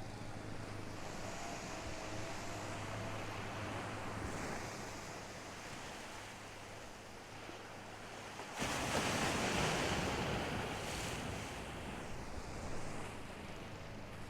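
Ocean surf washing on a beach, with a louder wave breaking suddenly about eight and a half seconds in, and wind on the microphone.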